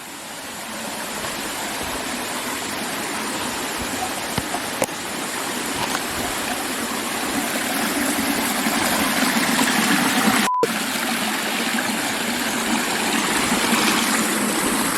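Rushing water of a mountain brook, a steady noise that grows louder over the first nine seconds or so. The sound cuts out for an instant about ten and a half seconds in.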